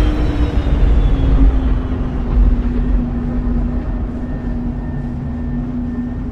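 Sci-fi sound effect of a huge cargo spaceship passing by: a deep rumble under a droning hum whose pitch falls and then levels off as the ship moves away. The whole sound slowly fades.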